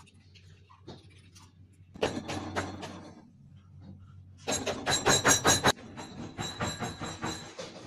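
Rapid knocking and clinking of a wooden-handled tool striking a bowl, in quick repeated strokes starting about two seconds in. The loudest run, about halfway through, has a ringing clink, then it carries on more softly.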